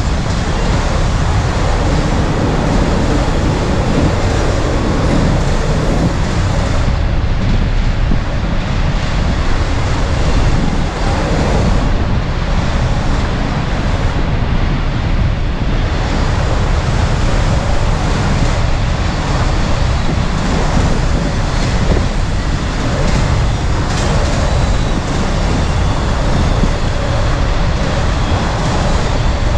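Autorack freight train rolling past steadily, its cars and wheels giving a continuous rumble on the rails, with wind buffeting the microphone.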